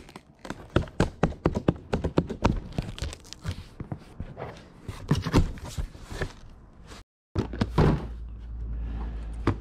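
Rapid knocks and thunks of boxes being handled and unpacked. The sound cuts out for a moment about seven seconds in, and a steady low hum follows under a few more knocks.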